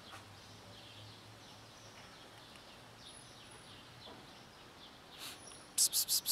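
Faint background with a low hum, then near the end four quick, sharp hisses: a person calling the cats with "psst, psst, psst, psst".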